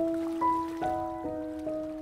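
Gentle instrumental background music: a melody of held notes, a new note sounding about every half second and fading.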